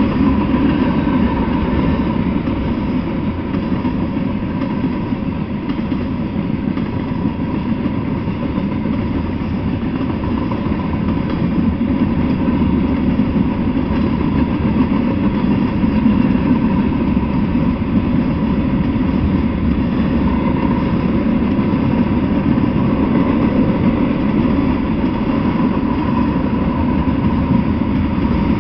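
Freight cars rolling steadily past: a continuous low rumble of steel wheels on the rails, with no break or let-up.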